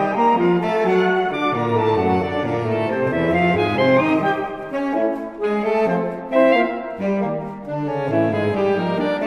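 A saxophone quartet of soprano, alto, tenor and baritone saxophones playing classical chamber music. Several lines move at once over a low bass line that changes note every half second or so.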